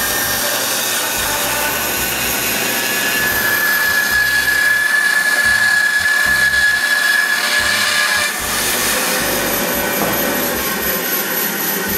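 Electric power tool running steadily under load while shaping a wooden fence piece, with a steady high whine in the middle stretch.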